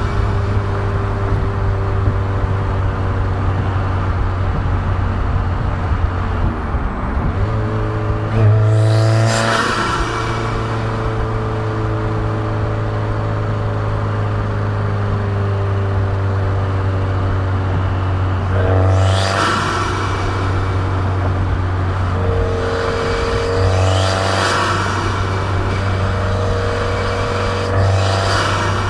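Turbocharged Subaru WRX flat-four engine running steadily under way. Its pitch climbs four times, about nine, nineteen, twenty-three and twenty-seven seconds in, and each climb brings a short rushing hiss from the turbo.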